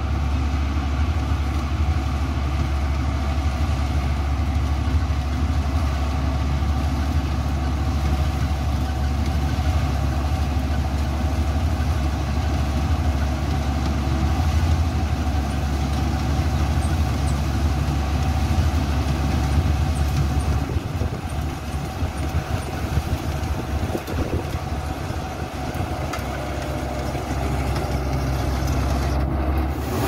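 Rice combine harvester's engine and threshing machinery running steadily while it cuts paddy, a deep continuous hum. From about two-thirds of the way in, the low hum weakens and the sound is a little quieter for several seconds before building back up.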